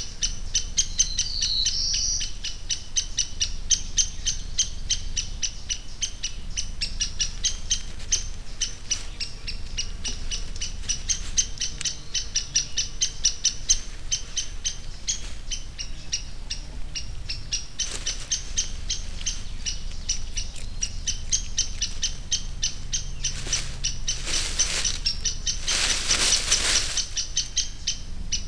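Woodland ambience: a steady, rapid, high-pitched pulsing chirr throughout, with a short bird call about a second in. Near the end come a few brief bursts of hissing noise.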